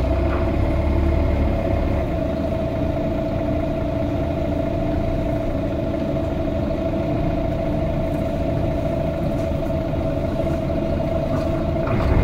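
Mercedes-Benz Citaro G articulated bus's diesel engine idling, heard from inside the passenger cabin as a steady hum and low rumble. Right at the end the engine note swells as it picks up.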